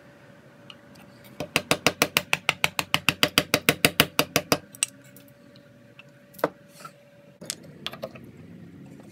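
Chisel worked on a wooden hammer-handle tenon: a fast, even run of sharp taps, about eight a second for some three seconds, then a single knock a couple of seconds later.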